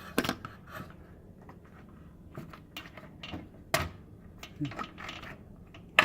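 Scattered light clicks and taps of a replacement microwave keypad panel being handled and pushed into its grooves on the housing, with one sharper knock near the middle.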